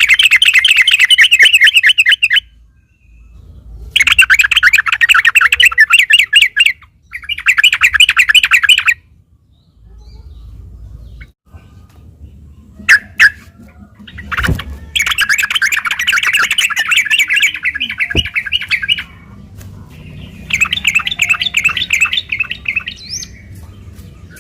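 Yellow-vented bulbul (trucukan) singing its fast, chattering rolling song in five bursts, each lasting a couple of seconds, with short pauses between them. A few sharp clicks come in the long gap about halfway through.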